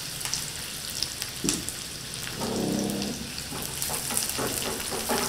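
Chopped onions sizzling in hot oil in a small frying pan, with the scrape and tap of a wooden spatula stirring them.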